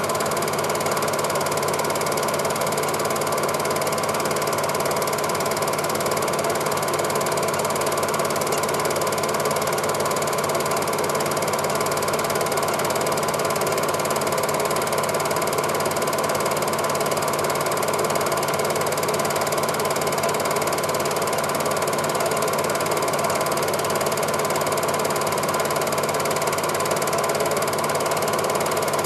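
Cine film projector running, its shutter and claw mechanism making a steady, unchanging clatter.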